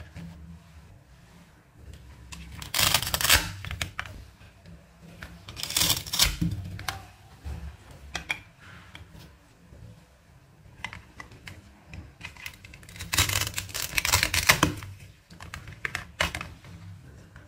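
Velcro ripping as a plastic toy knife cuts apart velcro-joined toy fruit and vegetable halves: several crackling rips, each about a second long, with a few light plastic clicks between them.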